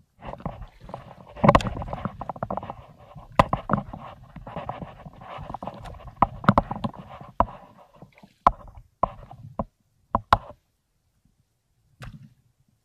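Shallow seawater splashing and sloshing among seaweed, with many sharp knocks and clicks. It is dense at first, breaks into separate short splashes after about eight seconds, stops about ten and a half seconds in, and one more brief splash comes near the end.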